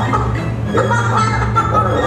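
Background music: held low bass notes under a wavering melody.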